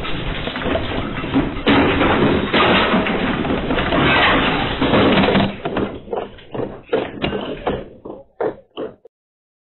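Loud rumbling and rattling of a house and its furnishings shaking in a strong earthquake, heaviest in the middle, then breaking into separate knocks and rattles before cutting off near the end.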